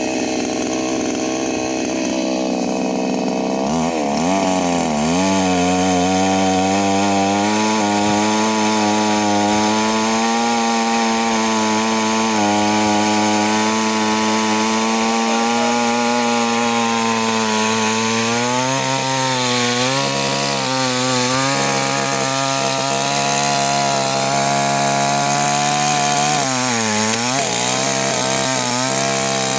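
Kingpark two-stroke petrol chainsaw running at high revs while cutting into a tree trunk and its branches. Its pitch dips and recovers as the chain loads up in the wood: about five seconds in, again around twenty seconds, and near the end.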